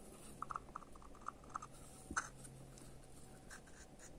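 Faint handling noises: a few light clicks and scrapes, with one sharper knock about two seconds in, as the metal end cap of a small electric motor is turned over in the hands.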